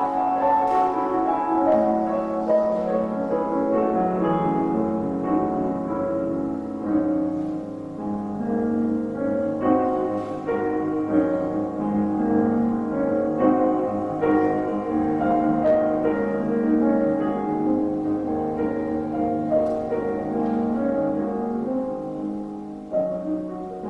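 Solo piano playing a slow, sustained passage of chords and melody.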